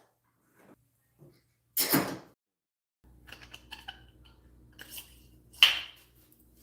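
Workshop handling noises: a short knock or scrape about two seconds in, then light clicks and a sharp metallic-sounding clink near the end over a low steady hum.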